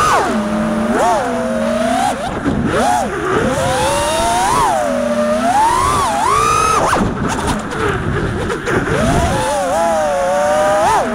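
A 5-inch FPV freestyle quadcopter's brushless motors and propellers whining, the pitch rising and falling again and again as the throttle is punched and eased, with rushing air underneath.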